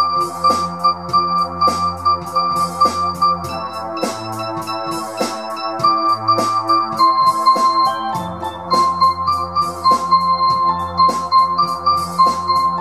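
Electronic instrumental music played live on a Korg microKORG synthesizer and a Yamaha PSR-295 keyboard: a repeating keyboard melody over held bass notes, with a steady drum-machine loop from NI Maschine. The deep bass fades out about four seconds in and comes back about two-thirds of the way through.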